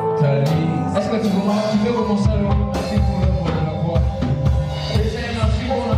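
Worship band playing a song on instruments with a drum kit. A heavy bass and kick-drum pulse comes in about two seconds in.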